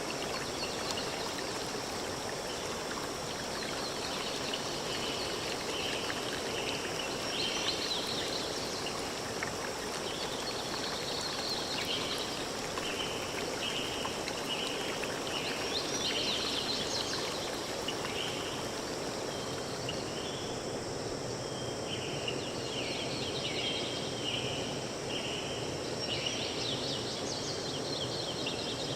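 Forest ambience: a steady rushing background hiss, with runs of short high chirping calls repeated about one to two a second, and scattered higher chirps.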